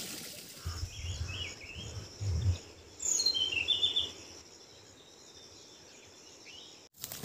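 Forest ambience: a few short chirping bird calls, one sweeping downward, over a steady pulsing insect trill, with low rumbles in the first couple of seconds.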